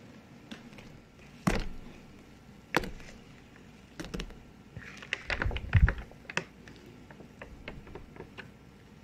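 Irregular taps and knocks of a spatula against a mixing bowl as thick cake batter is scraped out and poured into a pan. A cluster of quicker, heavier knocks and thuds comes about five to six seconds in, then lighter taps.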